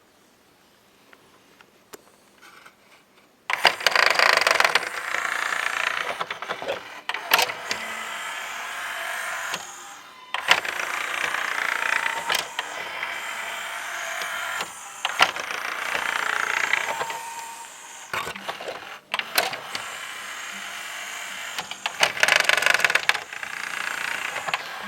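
Sony CDP-CE375 CD player's tray mechanism making a whirring, grating noise with sharp clicks as it runs, starting after a few seconds of near silence and pausing briefly several times.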